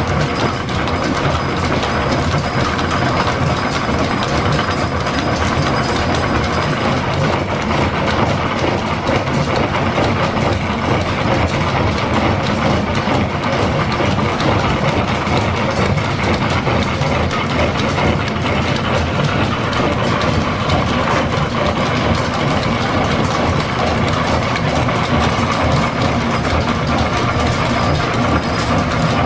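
Line-shaft-driven milling machine cutting gear teeth: a rotating gear cutter working into a gear blank held on a dividing head, with a steady, dense mechanical clatter of the machine and its drive.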